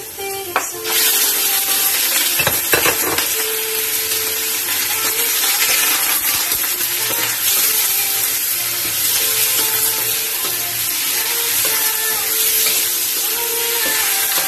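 Raw chicken pieces sizzling in hot oil in a stainless steel wok with browned garlic and onion, the sizzle starting about a second in as the meat goes in. A wooden spatula stirs and turns the chicken, with a couple of quick knocks against the wok.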